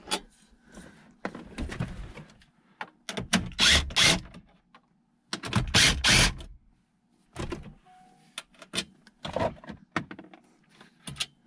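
A cordless drill-driver backing out the 8 mm screws that hold a factory car radio in its dash, running in two bursts of about a second each, a few seconds in. Small clicks and knocks from handling the screws and dash trim come before and after.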